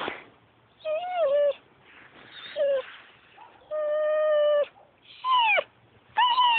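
A dog whining in a series of about five high, drawn-out calls, several sliding down in pitch at the end.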